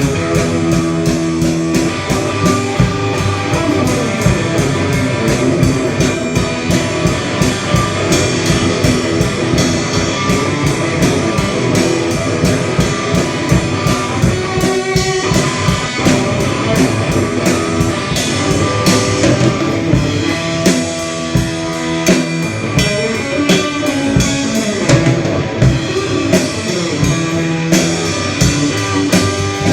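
Live rock band playing: guitar over a drum kit with a steady beat.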